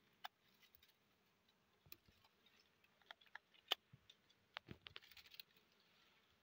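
Faint, scattered sharp snips and clicks with light rustling of dry twigs, as small branches around a wild honeycomb are cut away with hand pruning shears.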